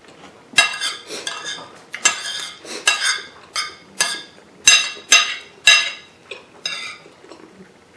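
Metal spoon scraping and clinking against a glazed ceramic plate as rice is scooped up: a run of short scrapes and clinks, about two a second.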